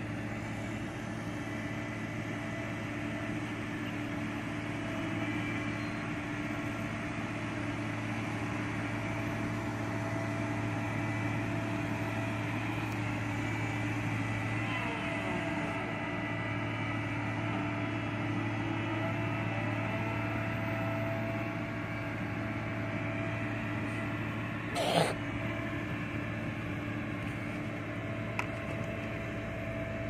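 Diesel engine of a single-drum road roller running steadily as it drives over a dirt road bed, with one sharp knock late on.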